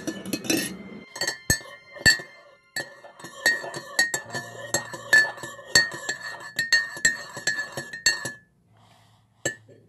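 Metal spoon stirring coffee in a mug, clinking against the sides over and over with a short ring after each strike. The clinking stops about eight seconds in, and one last clink follows near the end.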